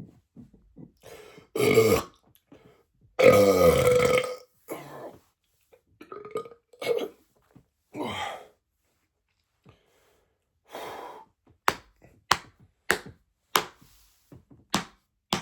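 A man belching several times: a loud burp, then a long, deep, loud burp that falls in pitch, then a few shorter, softer ones. Near the end comes a run of about six short sharp clicks, roughly every half second.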